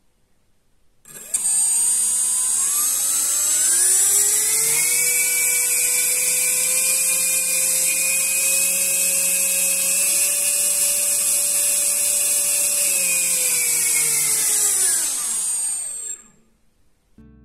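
Brushless FPV drone motor spinning a 5.1-inch three-blade propeller (5140) under PWM-tester throttle: it spools up about a second in with a rising whine, holds a steady high-pitched whine and propeller hum with a small step up in speed partway through, then winds down and stops shortly before the end.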